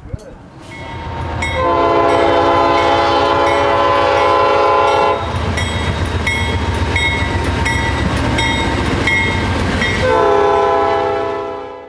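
CN diesel freight locomotive passing close by and sounding its multi-chime horn in a long blast of about three and a half seconds. The engine rumbles and the wheels click evenly over rail joints, then the horn blows again near the end before the sound fades out.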